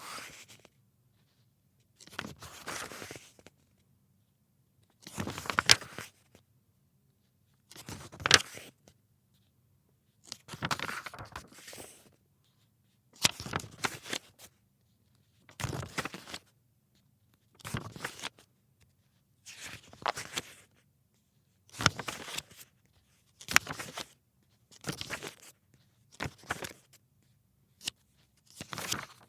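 Glossy magazine pages being turned one at a time, about a dozen turns. Each is a crisp paper flip with a short rustle, separated by brief pauses, and the turns come a little faster in the second half.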